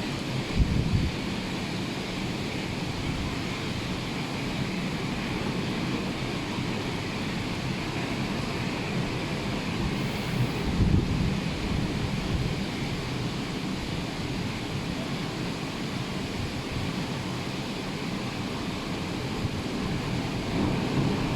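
Rough sea: steady surf breaking, with wind buffeting the microphone about a second in and again around eleven seconds.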